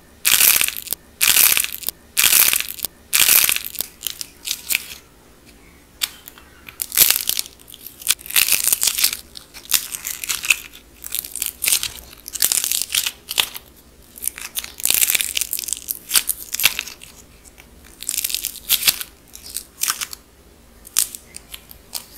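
Gold-painted dried clay shapes being squeezed and cracked between the fingers: repeated runs of crisp crackling and crunching, each squeeze lasting a second or so, with short pauses between them.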